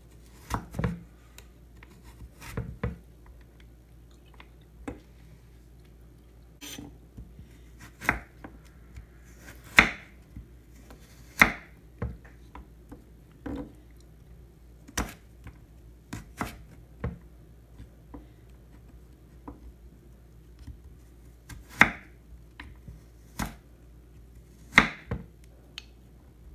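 Chef's knife slicing through carrot and knocking on a wooden cutting board: single crisp cuts at an unhurried, uneven pace, about one to two seconds apart, some strokes much sharper than others.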